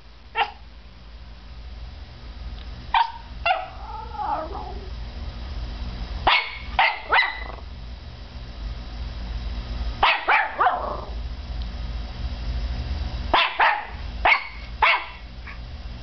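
Norfolk Terrier puppy barking sharply in short bursts of two to four, about a dozen barks, one drawn out into a wavering yelp, at a laptop's spinning CD drive. Under the barks a steady low hum from the drive grows louder.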